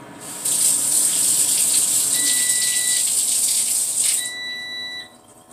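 Kitchen faucet running steadily as the tip of a whipped cream can is rinsed, shut off about four seconds in. A cooking timer beeps twice, once under the running water and once just after it stops, signalling that the chicken is done.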